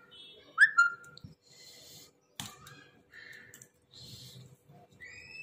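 Person hissing and sucking air through the mouth against chili heat, in several short breaths. A sharp whistle-like chirp falls in pitch about half a second in and is the loudest sound, and a second chirp rises near the end.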